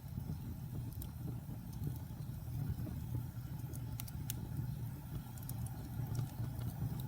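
A fire burning: a steady low rumble of flames with scattered sharp crackles and pops, a couple of louder pops about four seconds in.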